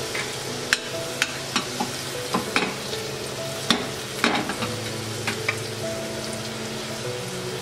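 Salmon fillet sizzling steadily in hot fat in an All-Clad stainless steel pan, with sharp pops and clicks scattered through the first five or so seconds. A cluster of clicks about four seconds in comes as metal tongs lift the fillet against the pan.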